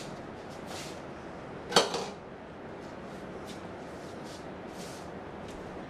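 One sharp plastic click about two seconds in, from handling a whiteboard marker, with a smaller click just before it and a steady low room hiss throughout.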